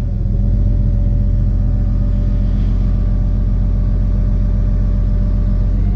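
Tow truck engine running steadily while its hydraulic wheel lift raises a pickup, with a steady whine that starts at the beginning and stops near the end as the lift stops.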